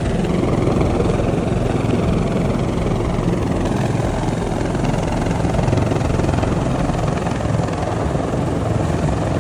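Rescue helicopter hovering close overhead to winch people up, its rotor noise loud and steady.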